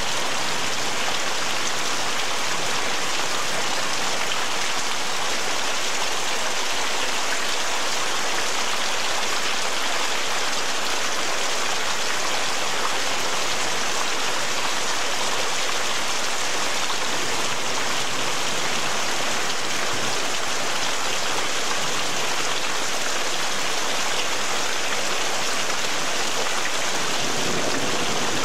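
Heavy rain pouring down, a steady even hiss that holds without let-up.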